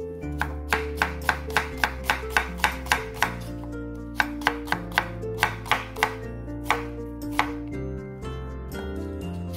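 Chef's knife slicing an onion on a wooden cutting board: quick, even knocks of the blade striking the board, about three a second, with a brief lull near the end. Soft background music runs underneath.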